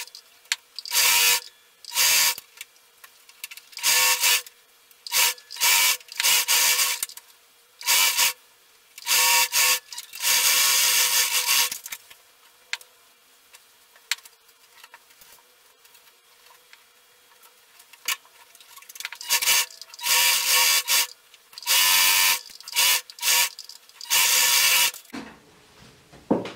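Singer electric sewing machine stitching in short stop-start runs, about a dozen bursts of running with pauses between them and a long pause in the middle.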